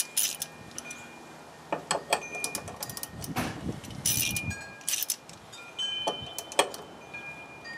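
Metal hand tools clinking and jingling in irregular sharp clicks, with a few short metallic rings, as a socket wrench and extension are handled and fitted to tighten the bolt of a new rear bump stop.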